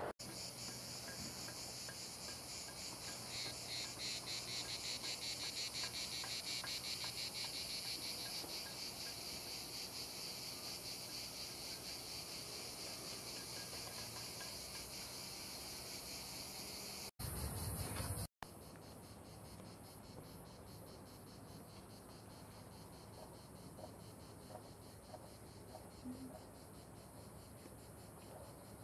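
Chorus of insects in the trees: a steady, rapidly pulsing high-pitched buzz. It is strongest in the first half, is broken by a short cut about 17 seconds in, and goes on more quietly after it.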